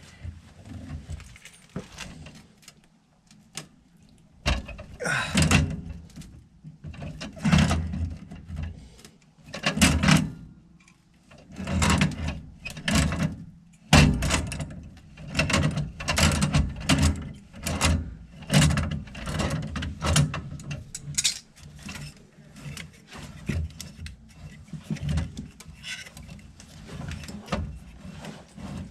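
Hand tools and metal parts clanking and rattling in short bursts about every second or so, from work on a gas furnace's valve and piping.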